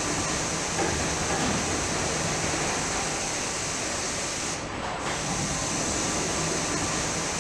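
Five-axis CNC router cutting a composite panel: a steady high hiss from the spinning cutter and the dust extraction around it. The hiss drops out briefly a little past halfway.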